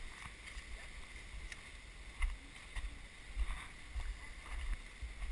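Footsteps of several people walking on a dirt trail, soft irregular steps, over a low fluctuating rumble from the worn camera moving with the walker.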